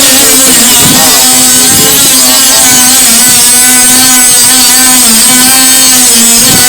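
Small high-speed power tool motor, a Dremel-type rotary tool, running with a loud steady whine whose pitch sags briefly a few times as it bites into the work.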